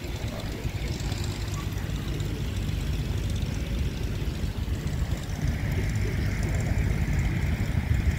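Vintage farm tractor's engine running at low speed with a steady low rumble as the tractor moves up to the pulling sled.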